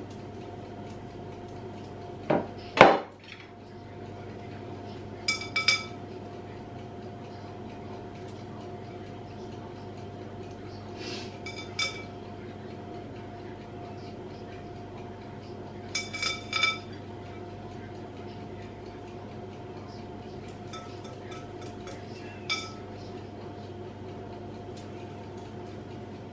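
Crockery clinking now and then as a ceramic mixing bowl is handled, each clink ringing briefly, with one louder knock about three seconds in. A steady low hum runs underneath.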